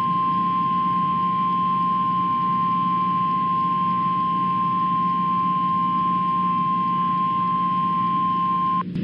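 Emergency Alert System attention tone: a single steady high-pitched tone, the 1050 Hz weather-radio warning alarm, held for about nine seconds over a low steady hum and cutting off sharply near the end.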